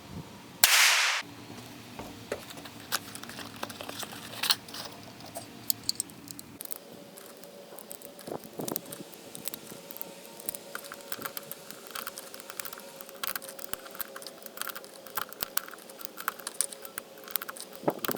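A single pistol shot under a second in, with a short echo, followed by scattered light clicks and small handling noises.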